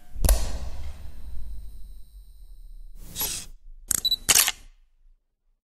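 Sound effects for a camera logo animation: a sharp hit with a long fading low tail, then near the end a camera's shutter firing in quick clicks, with a brief high focus beep among them.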